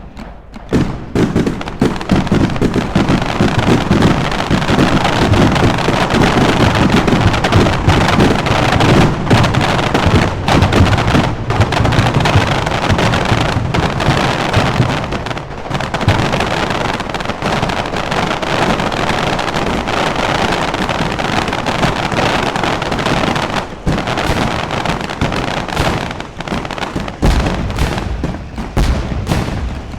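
Fireworks exploding in a dense, continuous barrage of overlapping bangs and crackling that starts about a second in, with a few brief lulls along the way.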